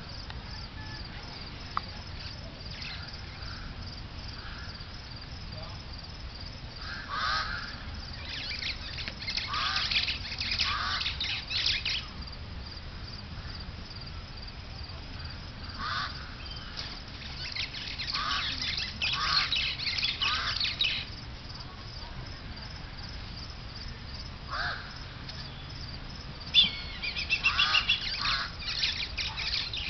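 Birds calling in several bouts of short, repeated calls, densest near the end.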